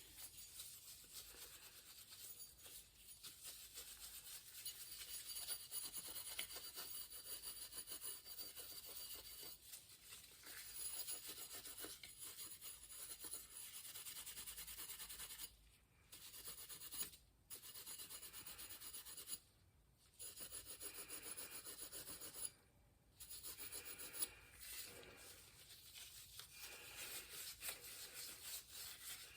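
Steel wool scrubbing rust and grime off a bicycle's metal wheel part, a faint steady rubbing that drops out briefly several times.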